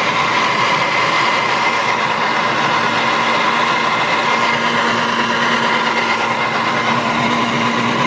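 Countertop electric blender running at one steady speed, blending orange pieces with liquid into juice. The motor holds an even pitch throughout.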